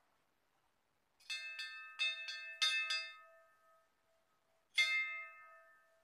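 Hanging brass temple bell struck by hand, a quick run of strikes in its first second and a half of sound, then a single strike after a pause; each strike rings on and fades slowly.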